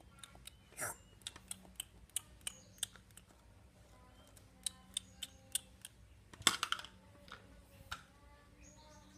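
Sharp, irregular crackling clicks of hard, glassy candy shards being crunched, with the loudest cluster of cracks about six and a half seconds in.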